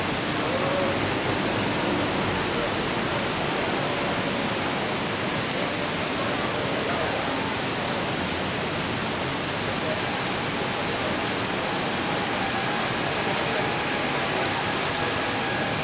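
Heavy rain pouring down onto a street: a dense, steady hiss of rainfall. A faint steady tone comes in during the last few seconds.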